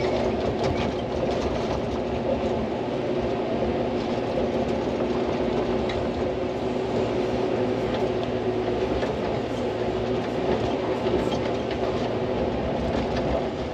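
Hydraulic excavator's diesel engine running steadily, with a few light knocks.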